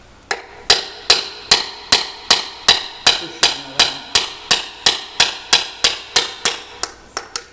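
Hammer blows on a steel drift punch, metal on metal, driving a gear shaft out of a Troy-Bilt tiller transmission: a steady run of sharp strikes, about two and a half a second.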